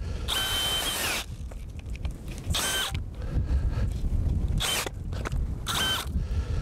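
Cordless drill spinning an auger bit into dry soil in about four short bursts, the motor whining up to speed and winding back down each time, with a low rumble in between.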